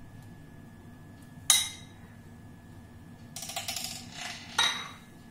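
A steel spoon strikes the glass bowl with a sharp clink about a second and a half in, then scrapes and clatters as it scoops the mashed potato filling onto the bread, ending in a second sharp clink near the end.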